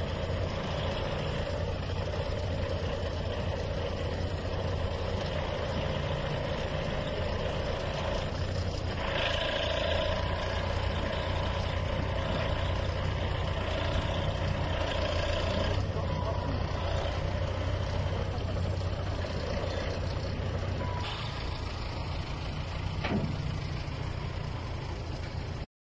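Truck engine running steadily to drive a truck-mounted loader crane's hydraulics as the crane arm is moved, with a higher hydraulic whine over the low engine hum; the sound eases a little past the two-thirds mark.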